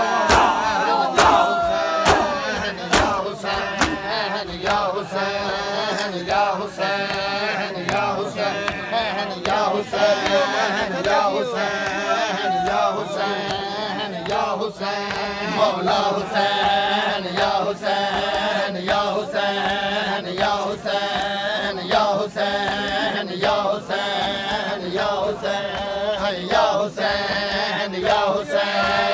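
A crowd of men chanting a Shia nauha in unison, kept in time by a steady slapping beat of hand matam (chest-beating) about once a second. Loud shouted cries from the crowd in the first couple of seconds.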